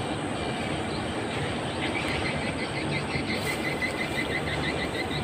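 Steady rushing outdoor background noise, with a rapid run of short high chirps, about five a second, from a small animal starting about two seconds in.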